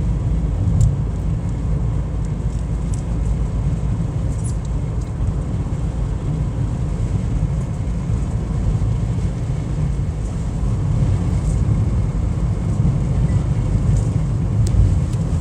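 Steady low rumble of a car driving, road and engine noise, with a few faint ticks.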